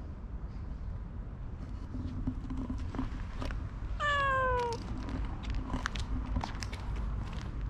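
A ragdoll cat meows once, a single call just under a second long that falls slightly in pitch, about four seconds in.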